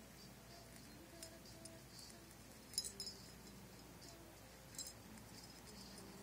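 A few light, sharp clinks and ticks from an Indian ringneck parrot playing with a toy, the loudest cluster about halfway through.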